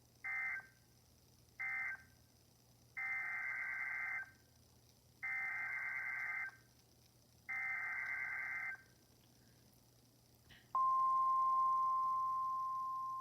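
NOAA Weather Radio Emergency Alert System data bursts. First come two short end-of-message bursts, then three longer SAME header bursts, each a harsh warbling screech of two fast-alternating tones. After a click about ten and a half seconds in, the steady 1050 Hz Weather Radio alert tone starts loud and eases off slightly, announcing a new warning.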